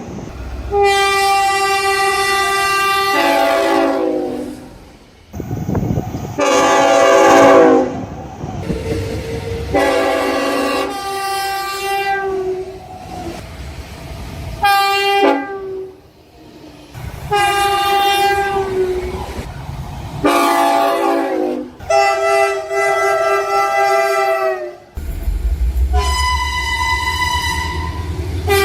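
Train air horns sounded by one passing train after another, each a chord of several notes, and several of them drop in pitch as the train goes by (the Doppler effect). The horns change abruptly from one to the next, and a low engine rumble comes in under the last one.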